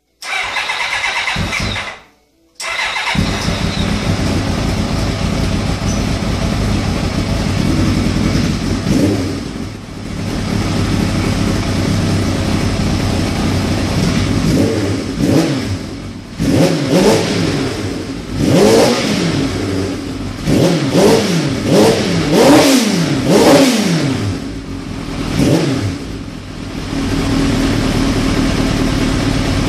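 1999 Kawasaki ZX750R inline-four motorcycle engine in a dune buggy, running at idle. It cuts out for about half a second near the start, then runs again. Later it is revved in a run of quick blips, the revs rising and falling many times, before settling back to a steady idle.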